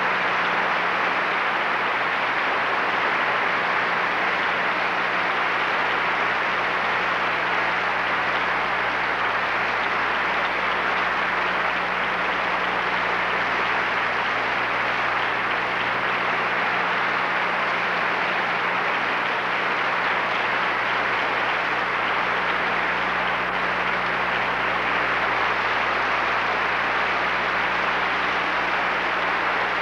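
A steady, even hiss-like noise with a low steady hum under it, unchanging throughout.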